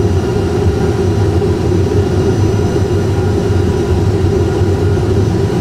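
Airbus A320 full flight simulator's cockpit sound on approach: the simulated engine and airflow noise runs as a steady, even drone.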